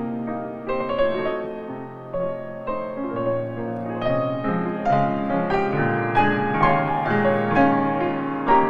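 Background piano music, a gentle melody of sustained notes played in a steady flow.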